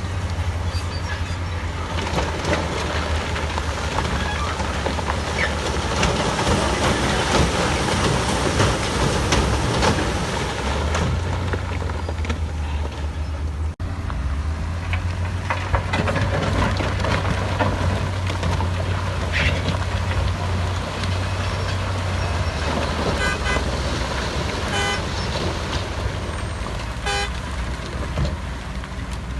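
Heavy diesel earthmoving machinery running steadily under load, with a deep constant engine rumble. It drops out for an instant about halfway through, and near the end a series of short, high-pitched chirps sounds over it.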